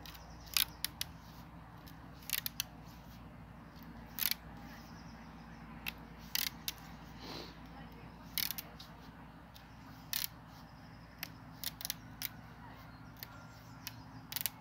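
Irregular sharp clicks and small cracks, roughly one every second or two, as a green hazel rod is worked by hand while weavers are stripped from it.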